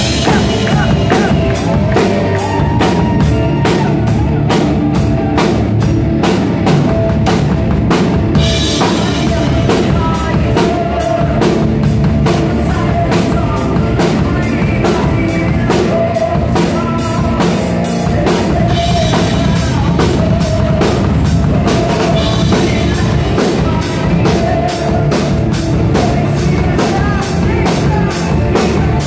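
Live heavy metal band playing loud and fast: distorted guitar, rapid drumming with quick bass-drum strokes, and a man singing into the microphone, heard from the audience.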